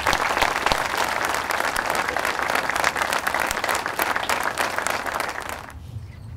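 Audience applauding, a dense patter of many hands clapping that stops near the end.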